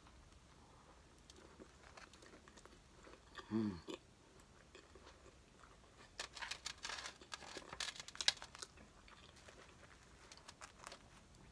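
A person chewing a mouthful of a Burger King Whopper with cheese: soft, wet chewing and crunching, thickest from about six to nine seconds in. About three and a half seconds in there is a short hum from the eater that falls in pitch.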